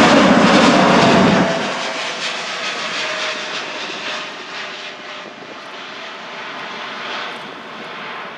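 Boeing 787-8 airliner's Rolls-Royce Trent 1000 jet engines at climb power as it flies over and away. The deep rumble cuts out about a second and a half in, and the engine noise then fades steadily as the aircraft recedes.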